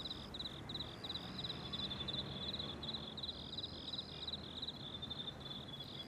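Crickets chirping in a steady, high-pitched pulsing chorus, with a higher, steadier trill coming and going above it.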